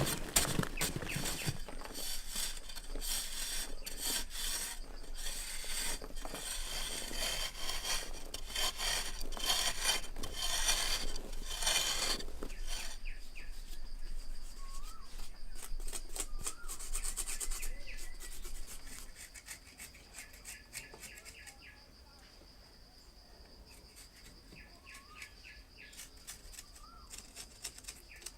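Hand tool scraping wood in quick repeated strokes for about twelve seconds, then stopping. Birds chirp and a steady high insect buzz carries on afterwards.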